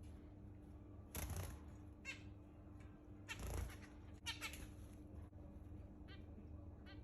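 Pet zebra finches calling: about half a dozen short, separate calls spread over a few seconds.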